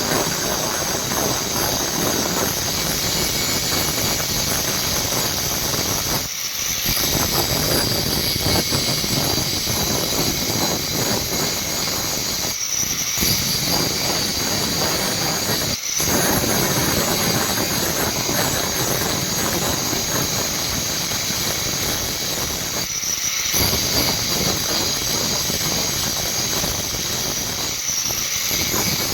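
Electric grinder grinding steel: a steady screeching whine over rough grinding noise, dropping off briefly a few times.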